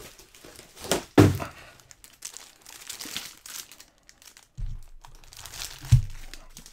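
Clear plastic wrapping on stacks of manga paperbacks crinkling as they are handled, with two dull thuds as books are set down on the table, about a second in and near the end.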